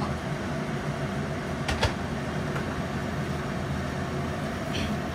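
Steady hiss and hum of stovetop cooking: a wok of stir-fry sizzling on an induction hob beside a covered pot at a boil. Two sharp clicks come close together a little under two seconds in.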